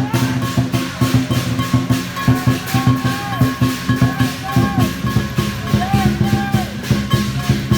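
Chinese dragon dance percussion: a drum with clashing cymbals and gong playing a fast, steady beat.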